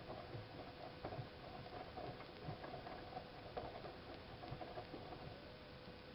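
Siemens iQ WIQ1430 front-loading washing machine on a 90°C boil wash: the drum turning wet laundry with an irregular patter and ticking over a faint steady hum. The patter stops about five seconds in, leaving only the hum.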